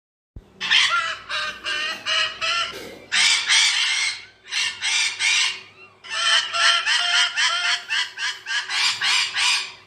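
A bird giving loud, rapid, repeated calls, about four a second, in runs broken by short pauses, starting about half a second in.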